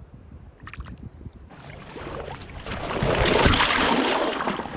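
Creek water splashing and churning close to the microphone, starting faintly about a second and a half in and building to a loud rush near the end. A few faint clicks come about a second in.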